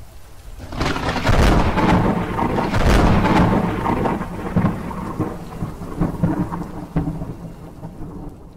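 Thunderstorm: a long peal of thunder over steady rain. The rumble builds about a second in, stays loud for a couple of seconds, then slowly dies away with a few sharper cracks.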